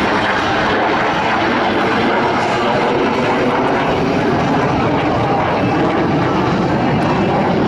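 Loud, steady jet engine noise from Blue Angels F/A-18 Hornets in flight.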